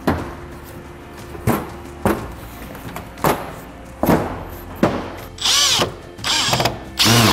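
Cordless drill-driver driving screws with metal washers through tile backer board into the studs, its motor whining up and down in three short bursts near the end. Several sharp knocks come before it.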